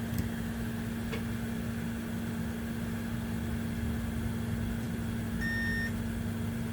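Steady electrical hum from the bench. A couple of faint clicks come near the start, and a short high beep near the end: a multimeter on continuity mode being probed on a laptop motherboard while checking for a short.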